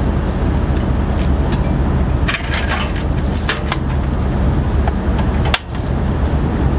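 Metal hardware and tools clinking and rattling as they are handled, in a quick cluster of sharp clinks a little past two seconds in and a few more later, over a steady low rumble.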